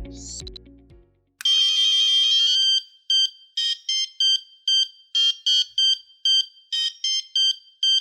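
Piezo buzzer driven by an Arduino playing an old-school mobile-phone ringtone melody from RTTTL code. It is a high-pitched, single-voice electronic tune: a held, warbling note about a second and a half in, then a run of short beeps, about two to three a second.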